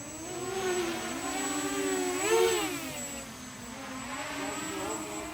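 Brushless quadcopter's motors and propellers whining in flight, the pitch rising and falling with throttle, with a brief surge about two seconds in.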